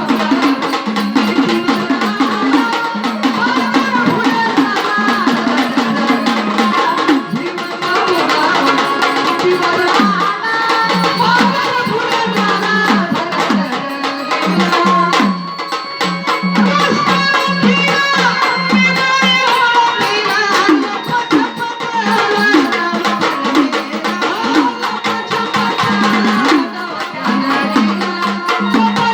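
Live Marathi gondhal folk music: sambal drums beating a steady rhythm under an organ melody.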